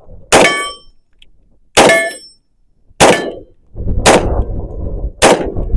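Five pistol-calibre shots from a Hi-Point 10mm, spaced about a second to a second and a half apart. Each shot is followed by the brief ringing clang of a steel target plate being hit. Low rumbling noise runs under the last two shots.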